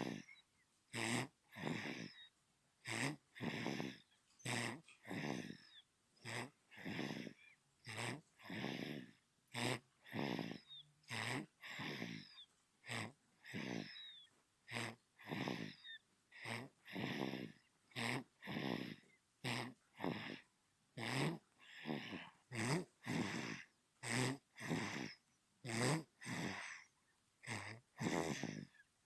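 Newborn baby snoring in its sleep: short noisy breaths, about two a second, in an even rhythm, with near silence between them.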